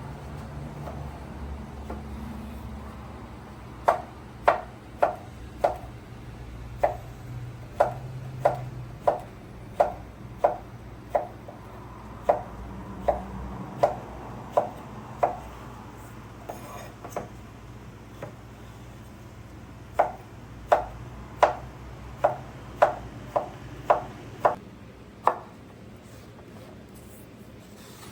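Knife chopping vegetables on a cutting board: steady sharp knocks about two a second, a pause of a few seconds in the middle, then a second run of chopping.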